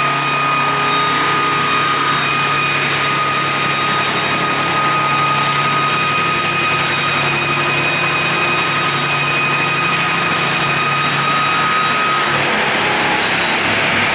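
Multi-blade circular saw machine running: a steady high whine from the spinning saw blades over a low motor hum. About twelve seconds in, the whine gives way to a broader, harsher noise.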